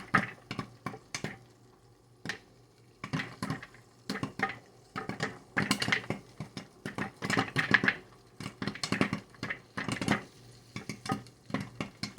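Popcorn kernels popping in quick, irregular clusters inside a covered electric stirring popcorn popper, over the faint steady hum of its stirring motor.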